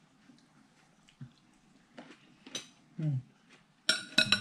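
Cutlery and dishes clinking at a dining table: a few small taps, then a louder, ringing clink of metal or glass on a plate near the end.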